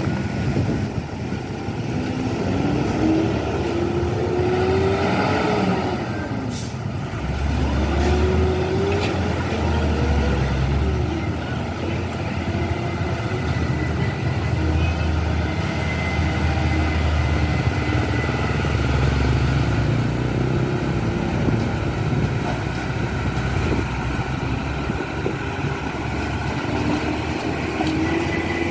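Heavy diesel trucks driving past, their engine notes rising and falling as they accelerate and change gear, with a deep rumble through the middle stretch.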